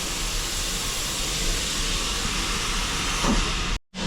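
Steam locomotive standing close by, venting steam with a steady loud hiss that cuts off suddenly near the end.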